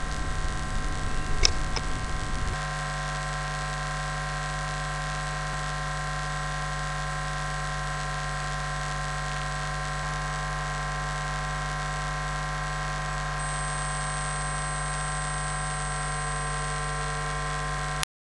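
Steady electrical mains hum and buzz in the recording, made up of many even tones. A single click comes about one and a half seconds in, and the hum cuts off suddenly just before the end.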